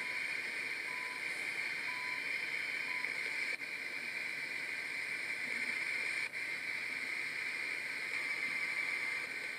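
Steady hissing radio static from the IFR FM/AM-1200 service monitor's receiver speaker, with four faint short beeps about once a second near the start. The static dips out briefly twice as new frequencies are keyed in.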